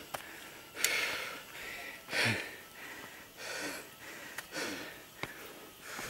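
A person breathing audibly close to the microphone: about five breathy rushes, one every second or so, with a few sharp clicks between them.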